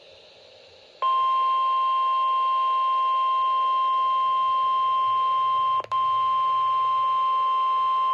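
NOAA Weather Radio warning alarm tone: a single steady 1050 Hz tone that comes on about a second in over faint radio hiss and holds for about seven seconds, with one very short dropout nearly six seconds in. The tone is the broadcast's alert that a warning message follows.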